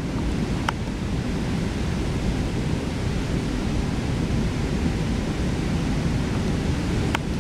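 Steady rush of heavy storm surf breaking on the shore ahead of a hurricane, with strong wind buffeting the microphone.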